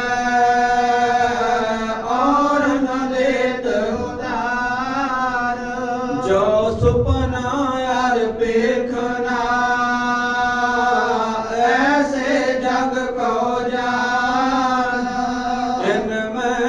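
A voice chanting Sikh scripture (Gurbani) to a melody, holding long drawn-out notes that glide slowly from one pitch to the next.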